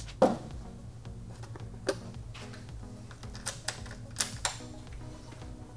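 Soft background music with changing held notes. A sharp knock comes just after the start, and a few light clicks and taps follow through the middle.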